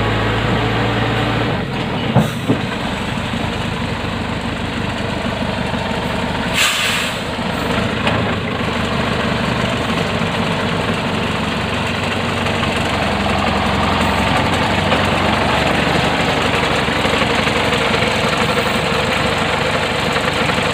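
Log truck's engine running steadily while the truck is bogged in mud, its tyres wrapped in chains. There is a short sharp sound about six and a half seconds in.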